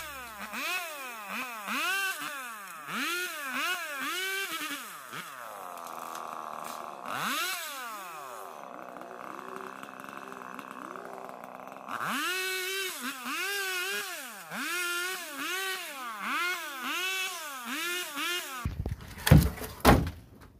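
Two-stroke chainsaw revved up and down over and over as it cuts mangrove wood, with a longer steady high-revving stretch in the middle. Near the end it gives way to several loud knocks of cut logs being handled.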